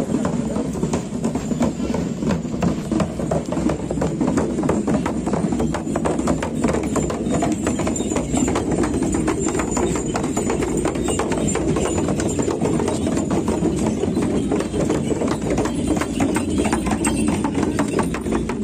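Several shamans' dhyangro frame drums beaten in a quick, steady, slightly uneven rhythm as the players walk, with the jingle of the brass bells on their bead bandoliers.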